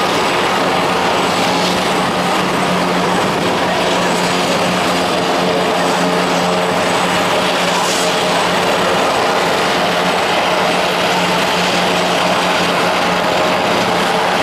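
Helicopter turbine engines and rotors running: a steady rush of noise with a constant low hum.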